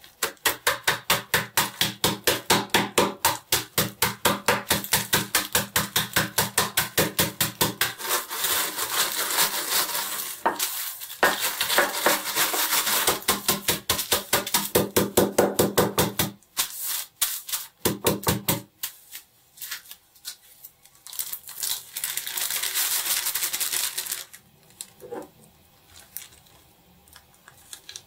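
Shortbread cookies being crushed in a zip bag: quick rhythmic pounding, about three to four blows a second, with crunching, for about sixteen seconds. Then a few separate knocks, a few seconds of continuous crunching, and scattered light clicks near the end.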